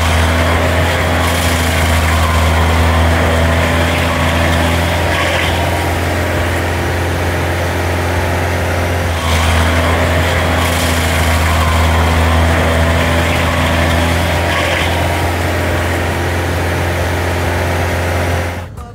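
Tracked stump grinder's engine running loud and steady under load while its toothed cutting wheel grinds into the stump and soil, with a rough hiss over the deep drone.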